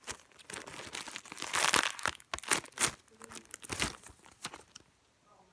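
Irregular crinkling and crackling of paper and plastic as a handmade paper squishy is handled, probably being taken from its plastic bag and squeezed; the crackles come thickest in the middle and die away near the end.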